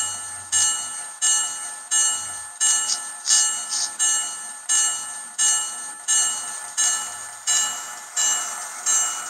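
Diesel locomotive bell sound from a Digitrax SDXH167D sound decoder in an HO Proto 2000 SD9 model, played through a small sugar-cube speaker with the shell off. The bell rings steadily at about one and a half strikes a second.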